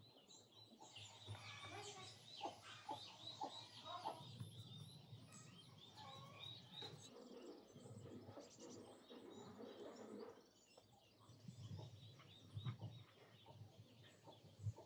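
Small birds chirping and singing, faint. Over it come a few soft knocks in the first few seconds and a rustle of hands working flour in a glass bowl.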